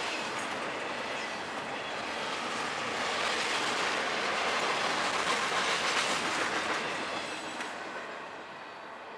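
Double-stack container freight cars rolling past at speed, a steady clatter and rumble of wheels on rail. It fades away as the last car passes, about seven to eight seconds in.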